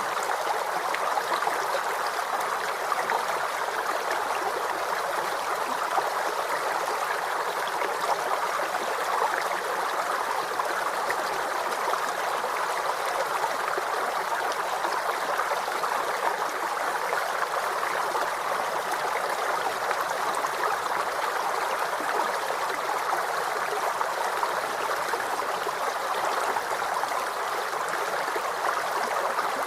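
Waterfall: a steady, unbroken rush of falling water, an even splashing hiss with little deep rumble.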